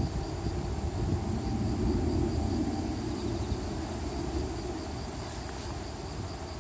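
Wind gusting on a hillside, a low rumbling that swells a little about two seconds in, with insects trilling steadily and high in the background.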